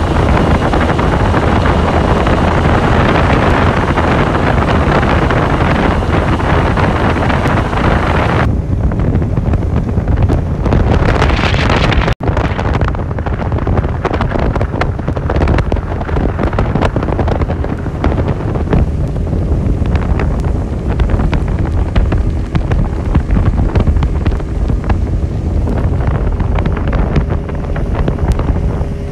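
A 60 hp outboard motor on a small motorboat running under way, with heavy wind noise buffeting the microphone. The sound briefly cuts out about twelve seconds in.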